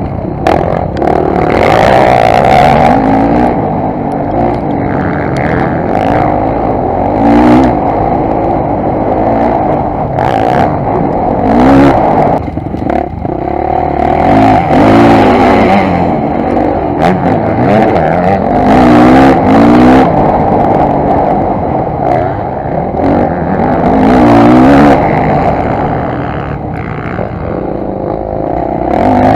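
Motocross dirt bike engine revving hard, the pitch climbing again and again as it accelerates and shifts gear, heard from a camera mounted on the bike, with wind rush and sharp knocks from the rough track.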